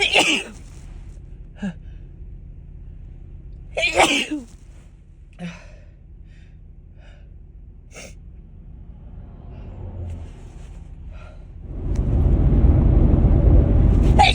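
A woman sneezing from an allergy: two loud, sudden sneezes, one at the very start and another about four seconds later, with a few faint short sounds between them. A loud, steady, low rumble sets in about two seconds before the end.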